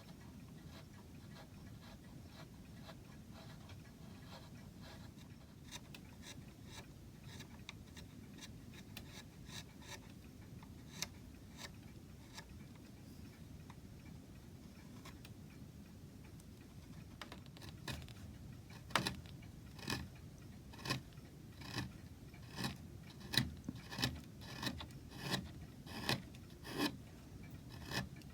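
Hand carving chisel cutting into wood: faint light paring at first, then from about two-thirds of the way in a run of sharp cutting snicks roughly one a second, coming a little faster near the end.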